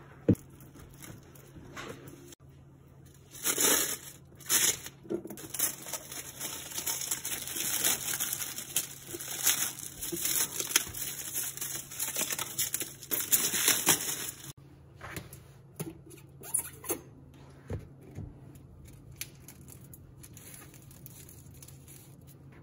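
Clear plastic wrap being pulled and torn off an acrylic display case and bunched up in the hands: loud crinkling and tearing from about three seconds in until about fourteen seconds, then a few lighter crinkles. A single sharp click right at the start.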